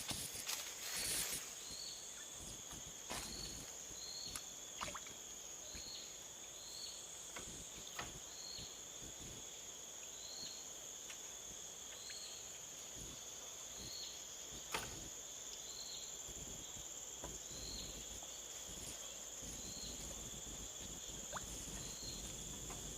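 Outdoor insect drone, a steady high-pitched tone, with a short chirp repeating every second or so and a few faint clicks.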